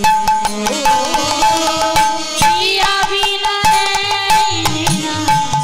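Kirtan ensemble playing an instrumental passage between sung lines. A hand drum beats a quick, even rhythm under held melody notes.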